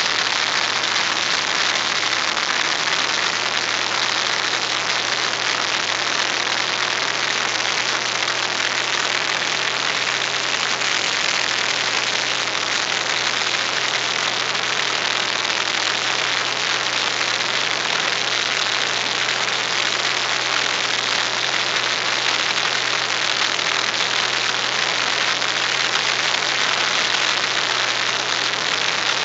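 Steady drone of a single-engine light aircraft's engine and propeller heard from inside the cockpit, with a steady low hum under a dense rush of airflow noise, on the landing approach.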